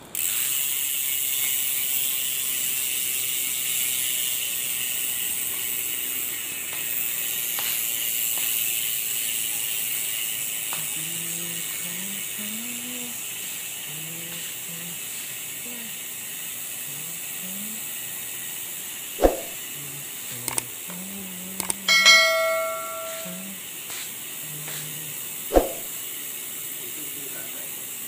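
Cole freehub buzzing as the rear wheel freewheels: a rapid ratchet whirr that starts suddenly and slowly fades as the wheel runs down. Near the end come a sharp click, a brief ringing tone and another click.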